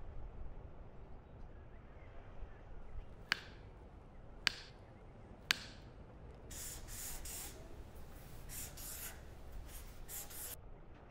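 Three sharp clicks about a second apart, then a pen scratching out several writing strokes on a card over about four seconds.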